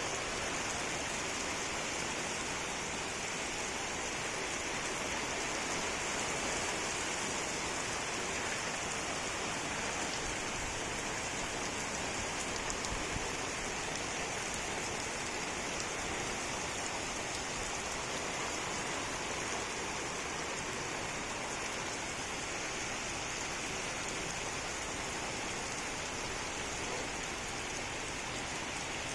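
Steady rain falling, a continuous even hiss of drops throughout.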